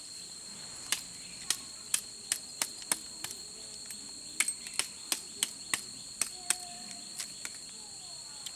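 Crickets or other insects calling steadily at a high pitch, over a quick, irregular run of sharp snaps or clicks, about two a second.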